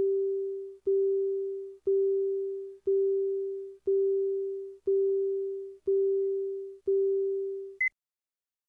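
Countdown leader beeps: a steady low tone once a second, eight times, each starting sharply and fading away, then one short, higher-pitched pip near the end, the two-pop two seconds before the spot starts.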